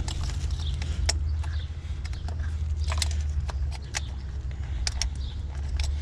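Several sharp plastic clicks and taps of coil packs and their clips being handled in a car's engine bay, over a steady low hum.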